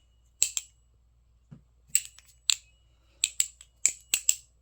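Squid Trainer V4 balisong trainer being flipped through a backhand fan: about ten sharp clacks as the handles swing around and knock together, several with a brief ring.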